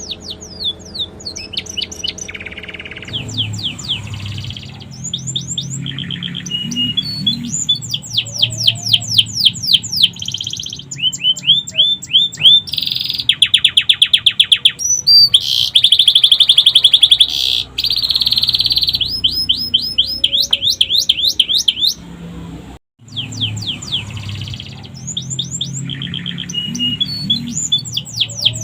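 Domestic canary singing a long, continuous song of rapid repeated downward-sweeping notes and buzzy trills, with phrases copied from the sikatan londo flycatcher; a low hum sits under it and the song breaks off briefly about three-quarters of the way through.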